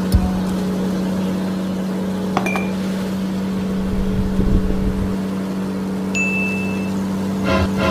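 Small electric motor of a homemade mini tractor running with a steady hum while it pulls a chained block. Short metal clinks and rattles sound over it, and a brief high ringing ding comes about six seconds in.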